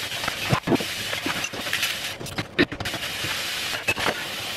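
Tap water running steadily into a kitchen sink while dishes and utensils knock and clink against each other during dishwashing.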